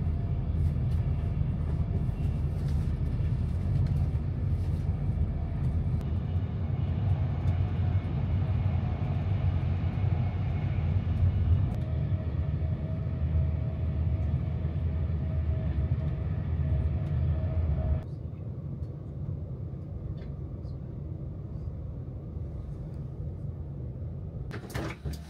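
Running noise inside an Avanti West Coast Class 390 Pendolino electric train at speed: a steady low rumble, with a faint steady whine joining partway through. About 18 seconds in it drops suddenly to a much quieter hum as the train runs slowly into the terminus.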